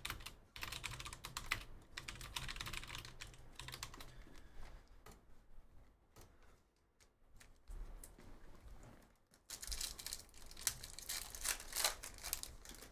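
Computer keyboard typing in quick runs of clicks, with a sparse pause of a few seconds in the middle.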